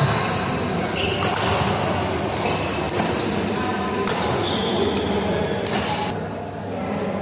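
Badminton doubles rally: rackets crack against the shuttlecock about once a second and shoes squeak briefly on the court mat, echoing in a large sports hall.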